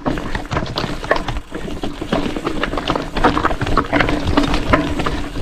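Mountain bike clattering over a rough dirt trail: rapid, irregular knocks and rattles from the tyres, chain and frame on bumps, over a steady low buzz.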